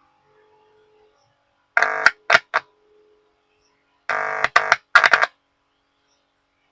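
Music, a short electronic phrase of a held note and then quick short notes repeated about every two and a half seconds, played through the DP-475 power amplifier under test and its speaker. The output is much weaker than it should be: the amplifier's low-sound fault.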